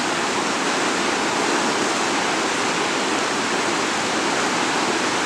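Fast-flowing Himalayan mountain river rushing, a steady, even wash of water noise.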